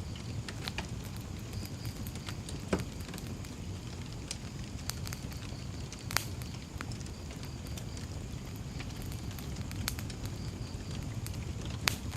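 Wood fire crackling, with sharp pops scattered through it over a steady low rumble; the loudest pops come at about three, six and twelve seconds.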